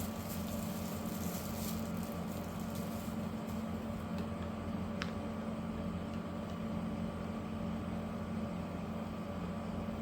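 A steady machine hum with a few faint clicks in the first few seconds and a brief thin chirp about halfway through.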